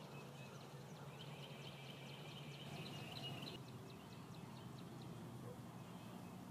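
Faint dawn birdsong: about a second in, a bird sings a high trilled phrase lasting about two seconds, along with a run of quick high notes, over a steady low hum.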